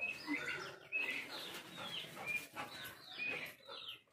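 Small birds chirping: many short, high chirps in quick succession.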